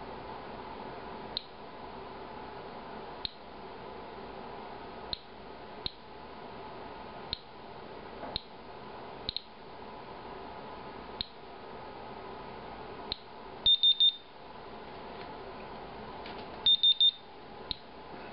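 Inspector Alert Geiger counter chirping at random intervals as it detects radiation counts, roughly one every one to two seconds. From about two-thirds of the way in it sounds louder triple beeps every three seconds, the alert that marks the end of its timed ten-minute count.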